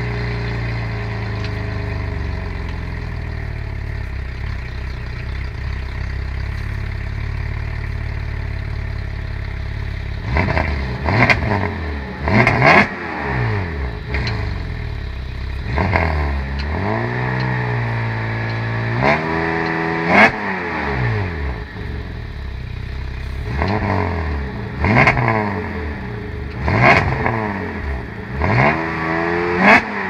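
2011 Cadillac CTS's swapped-in LFX 3.6-litre V6, heard from the exhaust end, idling steadily for about ten seconds, then revved repeatedly in short blips, one rev held for a couple of seconds. The engine is misfiring on a cold start (cylinders 2, 4 and 6), which the owner puts down to coolant leaking into the cylinder heads through porous castings until it burns off.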